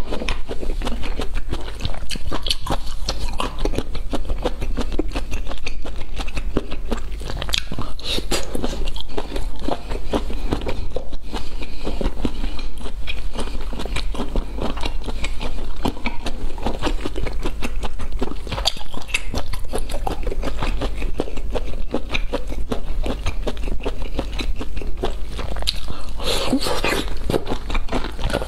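Close-miked chewing and wet mouth smacks of someone eating large cooked river snails, a dense run of small clicks and squelches that goes on without a break.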